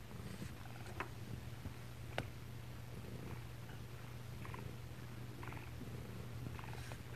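Mother cat purring steadily, heard close up with the microphone held right against her and her nursing kittens. A couple of sharp clicks come about one and two seconds in.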